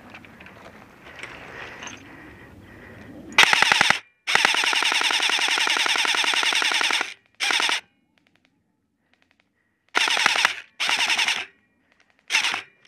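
AK-style airsoft electric rifle firing on full auto. About three seconds in comes a short burst, then a long burst of nearly three seconds, followed by four short bursts with pauses between. Before the first burst there is only low rustling of movement through dry brush.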